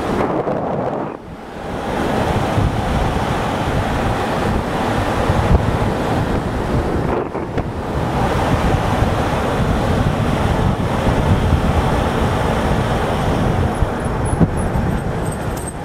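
Steady rushing road and wind noise from a moving car, with the air buffeting the microphone.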